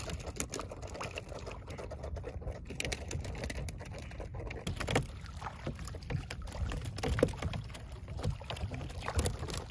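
Water splashing and lapping against the side of a small fishing boat as a long-handled dip net is swept through the water, with scattered small splashes and knocks over a low steady rumble.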